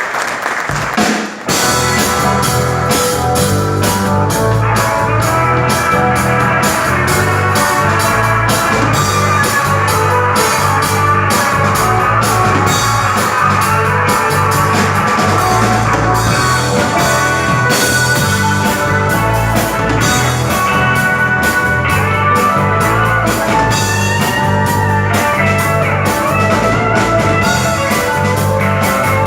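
A rock band playing live, drum kit and guitar, with no singing; a brief break about a second in before the full band comes back in.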